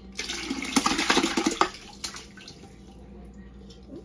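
Turkey brine poured from a pot into a plastic bucket already part full of liquid: a splashing pour that starts just after the beginning, is strongest for the first couple of seconds, then dies down.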